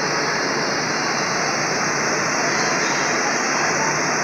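Steady, loud rushing machinery noise on a ferry's enclosed vehicle deck, with no clear beat or pitch.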